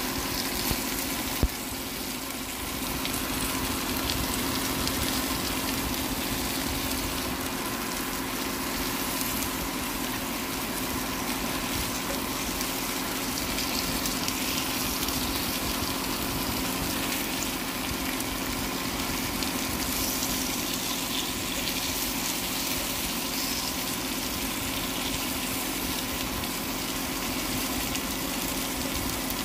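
Steady whirring hum and hiss of a running kitchen appliance fan, with one sharp knock about a second and a half in.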